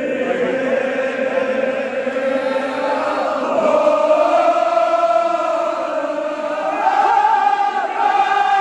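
Men's voices chanting a Kashmiri marsiya, a Shia mourning elegy, together in long drawn-out notes; the pitch steps up about seven seconds in.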